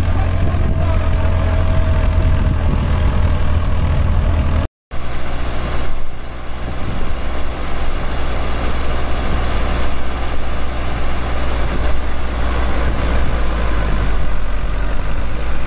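Diesel tractor engine running steadily under load while pulling a super seeder through the soil, a loud, even low hum. The sound drops out briefly about five seconds in, then the tractor, a Sonalika DI 750 III, runs on.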